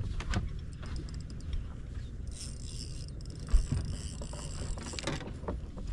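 Fishing reel working under load while a hooked bass is fought: runs of fine, rapid clicks and a buzzing stretch of line and drag, over low wind rumble on the microphone. A single sharp thump comes a little past the middle.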